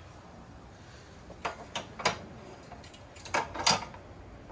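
Metal sway bar clinking and knocking against a Can-Am Spyder's frame as it is worked out from under the trike: a few sharp clicks starting about a second and a half in, with a cluster of louder knocks past the middle.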